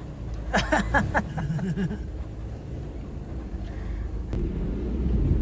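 A vehicle's engine running with a steady low rumble, which grows louder near the end. A faint voice is heard about a second in, and a sharp click comes about four seconds in.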